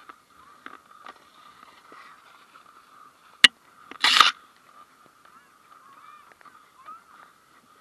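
Plastic sled sliding over snow, with a thin squeaky scraping throughout. A sharp knock comes about three and a half seconds in, followed half a second later by a short, loud scrape or bump.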